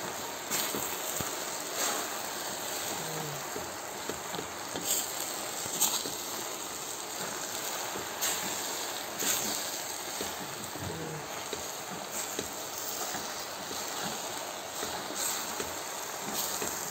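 Saluyot (jute mallow) leaves frying in hot oil: a steady sizzle with scattered sharp crackles and pops.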